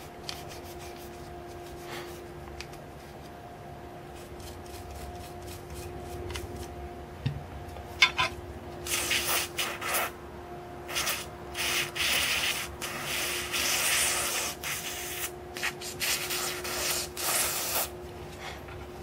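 Toothbrush scrubbing caked grease out of a metal airsoft gearbox shell, with aerosol silicone spray hissed through a straw onto it. Light scratching at first, then from about halfway a run of short, louder hissing and scrubbing bursts.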